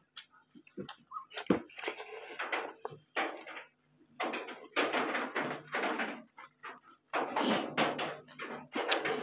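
Two people eating with their hands close to the microphone: wet chewing and lip smacking with sharp mouth clicks. The clicks are scattered at first, and the chewing grows denser and louder from about four seconds in.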